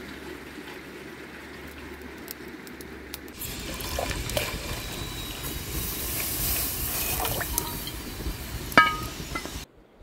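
Water poured from a clay jug into a stainless steel samovar-style water heater, splashing into the water already in the tank as it fills. The splashing grows louder a few seconds in, and a sharp metallic clink rings out near the end, just before the sound cuts off suddenly.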